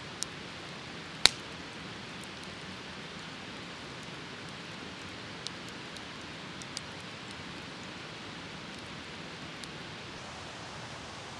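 Wood campfire burning: a steady hiss with a few scattered sharp pops and cracks, the loudest about a second in.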